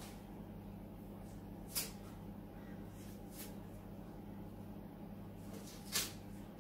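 Papery onion skin crackling in three short bursts as a whole onion is peeled by hand, over a steady low electrical hum.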